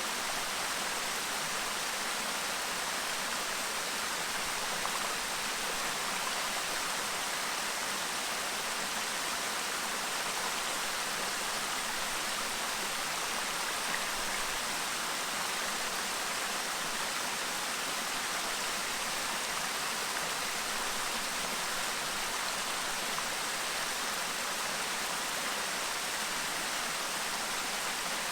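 Clear stream babbling: a steady, even rush of flowing water.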